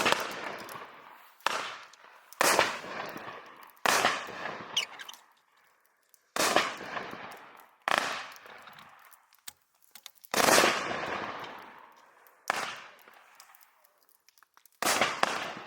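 Sky Painter 'Wild Ride' 500-gram, 20-shot consumer fireworks cake firing its shots one by one: about nine sharp bangs spaced one to two seconds apart, each fading out over a second or so.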